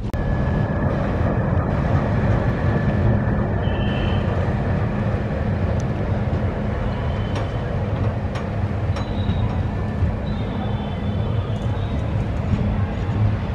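Train running at speed on the rails, with the steady drone of twin WDP4D diesel locomotives and the rumble of wheels on track. Faint high squeals come and go about four seconds in and again near the end, with a few light clicks.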